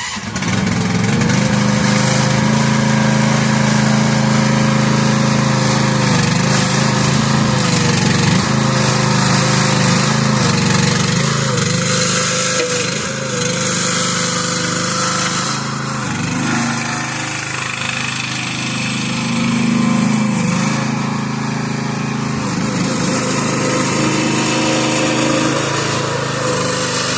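ZJG ZJ-12 mini excavator's 15-horsepower gasoline engine running steadily at working speed, its pitch dipping briefly now and then as the hydraulic controls, tracks and blade are worked.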